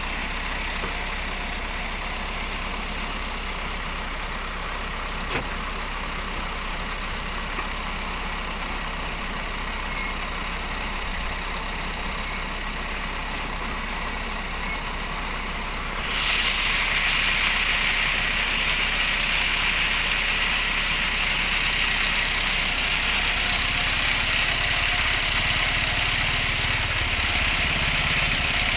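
An engine running steadily. About sixteen seconds in it grows louder with a bright hiss-like upper sound, and a wavering low hum comes in near the end.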